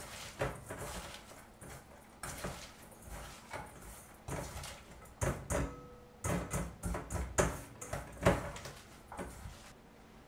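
Hands rubbing chopped myoga, ginger and shiso leaves with salt in a stainless steel bowl: irregular rustling and squishing, with fingers now and then knocking against the metal bowl.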